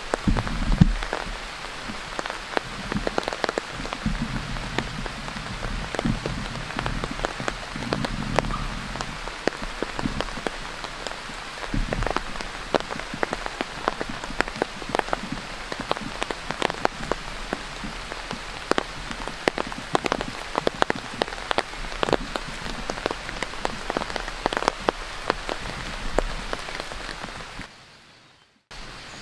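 Steady rain, with many individual drops ticking sharply onto a nearby surface. Near the end the sound cuts out for about a second and comes back softer.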